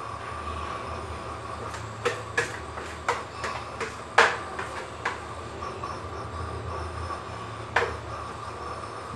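Kitchen noise: a steady hum with a faint high whine, and a run of sharp knocks and clinks between about two and eight seconds in, the loudest about four seconds in.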